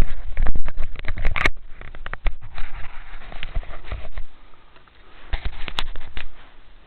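Eurasian woodcock's wings clapping as it thrashes trapped in brambles: a rapid, irregular clatter of wingbeats against the stems, densest in the first second and a half, then in shorter bouts, with a last burst about a second before the end.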